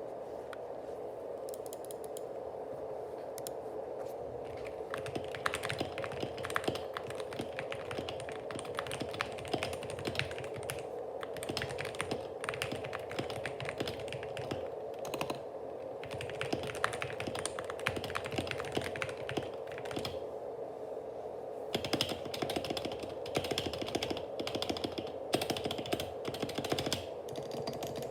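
Typing on a GK61 mechanical keyboard with Gateron optical yellow linear switches lubed with olive oil and stock stabilizers: fast runs of key clacks with short pauses between them, over a steady hum.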